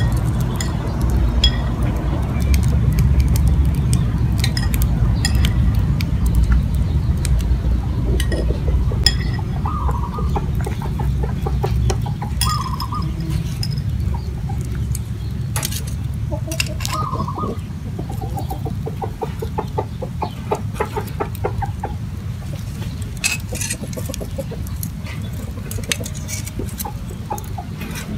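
Chickens clucking, with a few short calls and a quick run of clucks, over a steady low rumble. Scattered clinks come from a metal spoon and tongs against small ceramic bowls on a wire grill.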